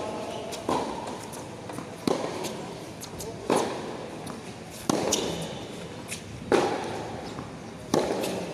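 Tennis rally: the ball struck by rackets and bouncing, a sharp pop about every second and a half, six in all. Each pop has a short echo under the covered court's roof.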